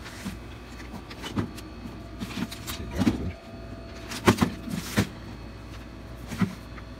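Sheet-metal outer housing of an air fryer being handled and slid off its base: scattered clicks, knocks and short scrapes, the loudest pair of knocks about four and five seconds in.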